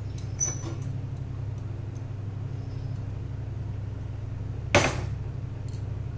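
Kitchen utensils clinking: a light clink about half a second in and one loud, sharp clink near the end, over a steady low hum.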